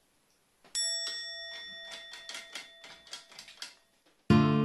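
Edited-in sound effect: a run of quick, irregular typewriter-like clicks over a steady ringing tone, fading out after about three seconds. Near the end an acoustic guitar chord is strummed and rings on.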